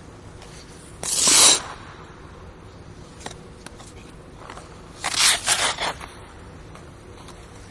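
A single skater's ice skate blades scraping on ice. There is one short scrape about a second in, then a longer scrape of several strokes about five seconds in, with faint blade ticks between.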